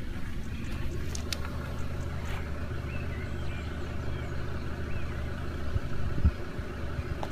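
Four-wheel-drive vehicle's engine running with a steady low hum, with a few faint chirps and a brief click above it.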